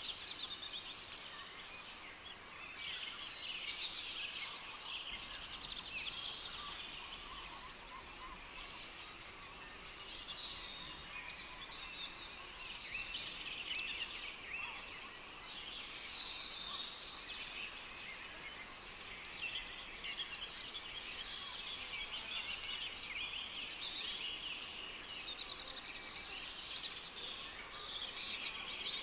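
Tropical rainforest ambience: a cricket chirping at an even pulse of about two chirps a second, stopping briefly a couple of times, over a dense chorus of scattered bird and insect calls.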